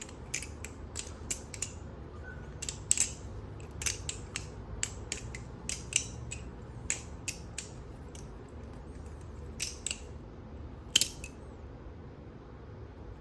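Kraken-clone balisong (butterfly knife) being flipped: irregular sharp clicks and clacks of the handles and latch, in quick clusters with short pauses between.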